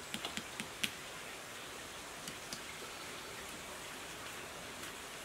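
Light clicks and ticks of copper magnet wire being handled and pushed into the slots of a water pump motor's metal stator: a quick run of clicks in the first second, then a few scattered ones, over a steady soft hiss.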